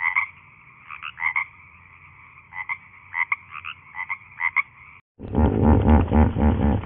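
Tree frogs calling: short clucking calls in twos and threes, over a steady high drone. About five seconds in this cuts off, and a much louder, deep animal sound takes over.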